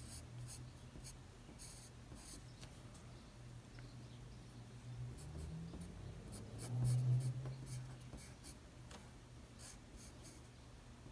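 Pencil scratching on paper in short, repeated sketching strokes. A low hum swells briefly a little past the middle.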